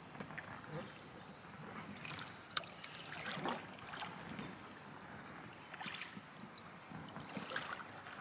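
Paddle strokes in the water of an inflatable canoe: faint, irregular splashes and drips, with one sharp tap about two and a half seconds in.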